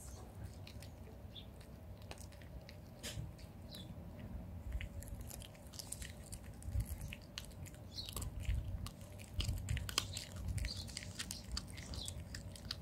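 Tabby cat chewing and biting food with its mouth close to the ground, making irregular wet clicks that come thicker after about five seconds.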